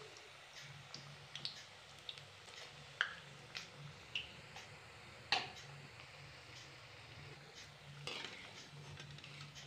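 Besan fritters deep-frying in hot oil in a metal kadai, with faint scattered crackling pops. Near the end a perforated metal skimmer knocks and scrapes against the pan as the fritters are lifted out.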